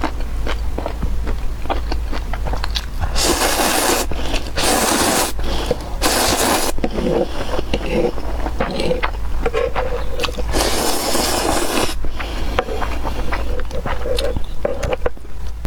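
Close-miked eating of noodles: wet clicking chewing sounds throughout, broken by four long hissing slurps. A steady low hum runs underneath.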